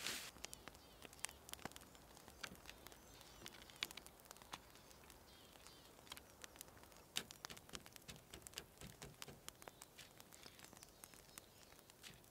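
Faint, scattered small clicks and taps from hand-breading meat: pieces of raw grouse breast dipped in beaten egg and worked into crumbs on paper plates.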